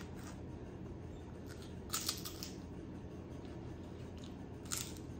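Potato chip bag crinkling in short bursts as a hand reaches in and takes out a chip, a few rustles about two seconds in and again near the end, over faint room hiss.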